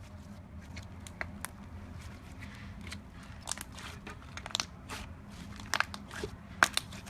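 Slime being worked by hand, giving sharp crackling pops and clicks. They are sparse at first, come more often in the second half, and the loudest pop is near the end.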